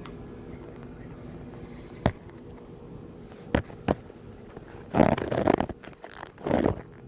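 Close handling noise: a few sharp taps on the phone, then two short scratchy rustles near the end, the puppy pawing at it.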